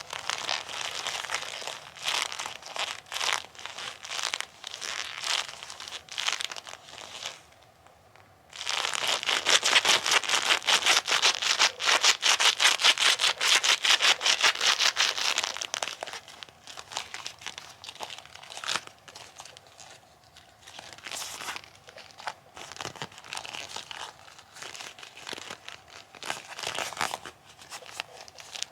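Bilpearl rubber gloves rubbed together, sticking and peeling apart in a dense run of crackling clicks. After a short pause about eight seconds in comes a stretch of fast, hard rubbing, the loudest part. Then the rubbing turns slower and sparser.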